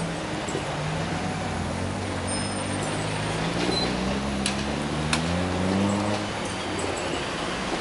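Road traffic: car engines driving past and pulling away, with an engine note that rises over several seconds. There are two sharp clicks about four and a half and five seconds in.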